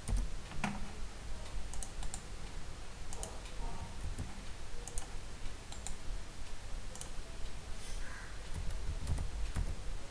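Typing on a computer keyboard: irregular, scattered keystrokes.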